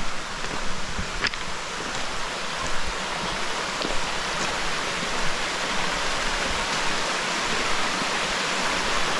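Spring water running out of the ground into a clear karst river, a steady rush that grows slowly louder, with a few light knocks in the first seconds.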